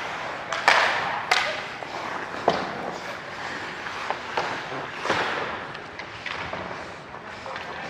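Ice skate blades carving and scraping on the rink in swishing strokes, with a few sharp knocks of hockey play, the loudest near the start.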